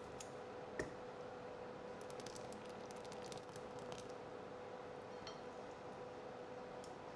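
Faint kitchen handling sounds: one sharp click about a second in, then a quick run of light clinks and ticks, over a steady electrical hum.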